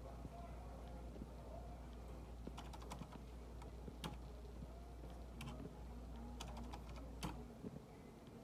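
Computer keyboard being typed on: scattered keystrokes in short runs with pauses between, over a low steady hum that stops near the end.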